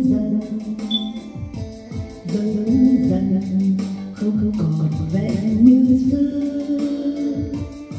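A song playing: singing over guitar, with a steady beat.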